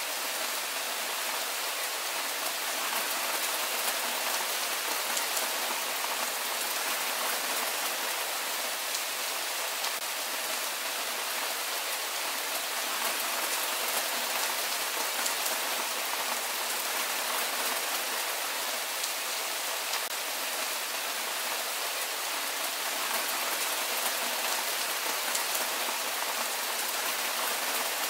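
Steady rain falling: an even hiss of countless drops, with fine ticks of single drops through it.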